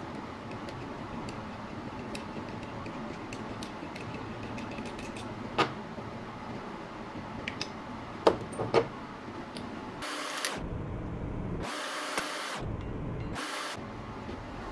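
A few sharp metal clinks, the loudest about two-thirds of the way through, as the steel piston-and-connecting-rod parts and crankshaft of a semi-hermetic compressor are handled, over a steady workshop hum. Near the end the background turns to a brighter hiss in three short stretches.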